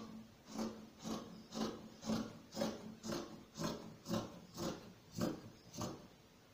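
Fabric scissors snipping through several pinned layers of cloth folded in four, about two cuts a second, roughly a dozen strokes in a steady rhythm.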